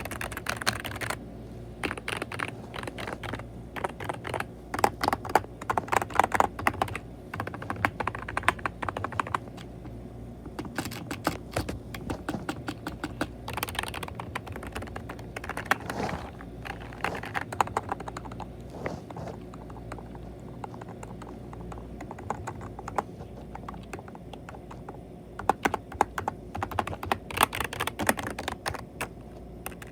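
Typing on a membrane keyboard: runs of quick, soft key clicks in irregular bursts, with short pauses between them.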